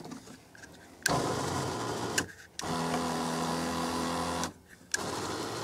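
Electric seat-adjustment motors of a W126 Mercedes power seat whirring in three short runs as the door switch is pressed and released, about a second, two seconds, then another stretch near the end. The seat is being tested for a fault that is traced to a loose connection under the seat to the backrest motor.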